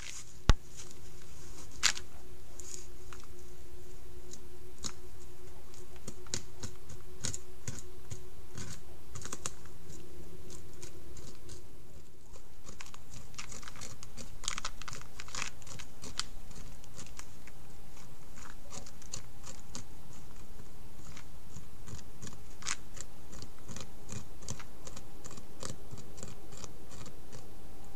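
North American beaver gnawing a tree trunk: rapid, irregular clicks and scrapes of its incisors chipping into the wood, over a steady hiss. One sharp, louder click comes about half a second in.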